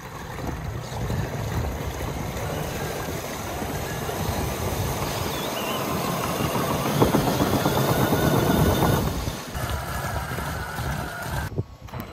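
RC monster truck with water-jug wheels driving across a lake: the spinning jugs churn and splash the water while its motor runs, loudest about seven to nine seconds in.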